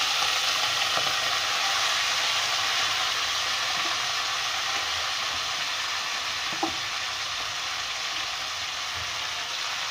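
Hot cooking oil sizzling steadily in a pot as chopped fenugreek leaves and diced potatoes are tipped in, the sizzle easing slightly as the pan fills. A single sharp tap about six and a half seconds in.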